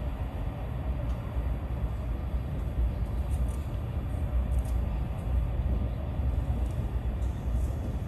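Steady low rumble and rushing noise inside the passenger car of a Chinese high-speed train running at speed, with a few faint ticks between about three and five seconds in.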